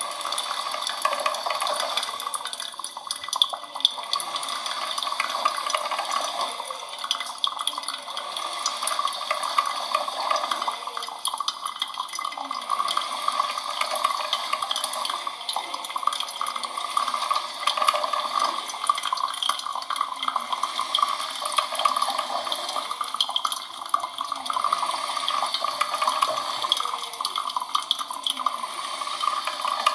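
Coffee machine running, a steady watery hiss with many small crackles.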